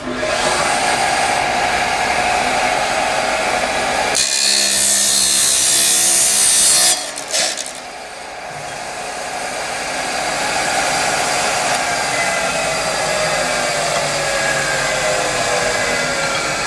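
A 5 hp three-phase 14-inch abrasive chop saw switched on, its motor and cut-off wheel spinning up with a steady hum. About four seconds in it grinds through a clamped steel pipe with a harsh, hissing rasp for about three seconds. The wheel then keeps spinning, its tone slowly sliding down in pitch.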